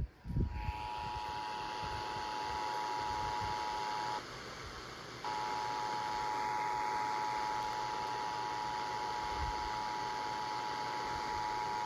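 Emergency Alert System two-tone attention signal: two steady tones near 853 Hz and 960 Hz sounding together over a hiss. It breaks off for about a second just after four seconds in, then resumes.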